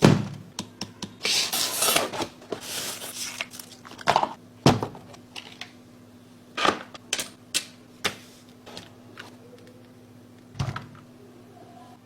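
Keys of an Akko mechanical keyboard being typed on: irregular sharp clacks, a fast flurry in the first few seconds, then separate key strikes that thin out toward the end, over a faint steady hum.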